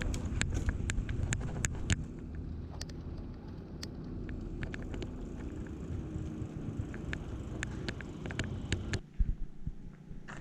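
A city bicycle being ridden along a road, with a low rumble and frequent sharp, irregular rattling clicks from the bike. The rumble drops away near the end as the bike slows.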